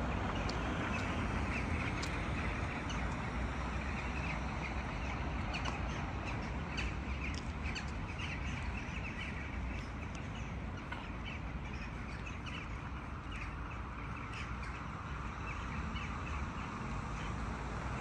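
A large flock of birds calling over one another in a dense, continuous chatter of short calls, over a steady low background rumble.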